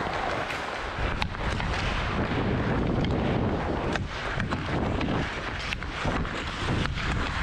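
Wind rushing over a helmet-mounted action camera's microphone as a hockey player skates hard with the puck, the rumble growing heavier about a second in. Skate blades scrape the ice, and a few sharp clicks come from the stick blade on the puck.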